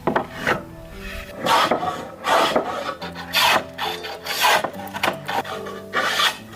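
A hand tool scraping or rasping wood in repeated, irregular strokes, over background music. This is likely the drum's wooden shell being shaped.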